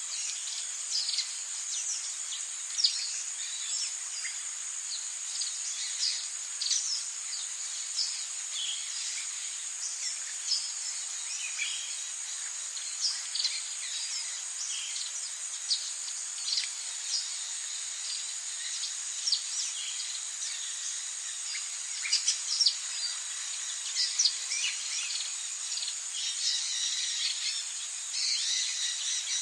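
Tropical forest ambience: a steady high-pitched drone of insects, with many short bird chirps and calls scattered over it, growing busier near the end.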